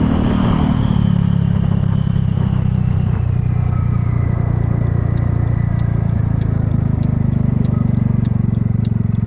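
Kymco People 250 scooter's single-cylinder four-stroke engine running steadily on the road, its exhaust leaks patched with high-heat epoxy. A faint high whine eases lower in pitch over the first few seconds.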